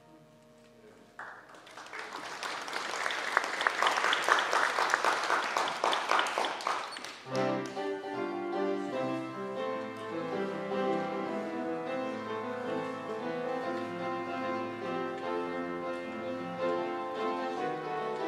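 Congregation clapping for about six seconds, starting about a second in, then an upright piano starts playing a quiet, steady piece that runs on to the end.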